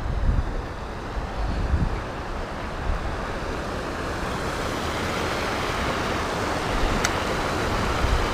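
River water rushing over a shallow rocky riffle: a steady hiss that grows louder over the second half, with low wind rumbles on the microphone in the first couple of seconds.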